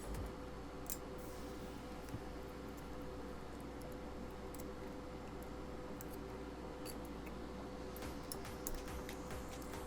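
Scattered light clicks and small scrapes of hands and tools working the metal tabs off LiFePO4 battery cells, over a faint steady hum.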